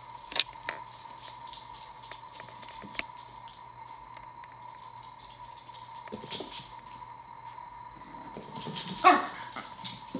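A Yorkshire terrier gives one short, sharp bark about nine seconds in, after a softer yip at about six seconds. Light ticks can be heard between them.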